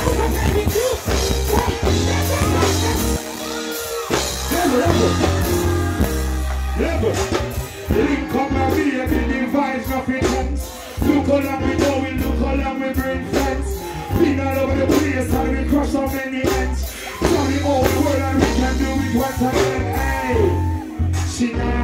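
Live reggae band played loud through the stage PA, a deep bass line under a male singer's voice.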